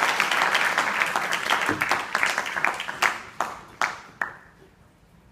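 Audience applauding, thinning out to a few last single claps about four seconds in.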